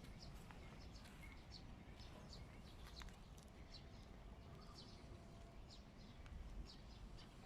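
Faint bird chirps, short high notes repeating a few times a second, over a low, steady outdoor rumble.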